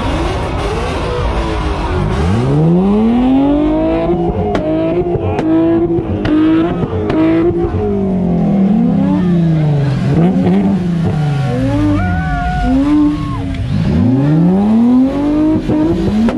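Sport motorcycle engine revved hard again and again, its pitch climbing quickly and falling back, with several slower drops in the middle, as the bike does a rear-tyre burnout.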